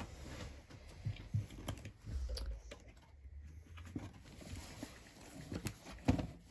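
Scattered light clicks and taps of plastic blister-pack toy car packaging being handled, with a sharper knock about six seconds in.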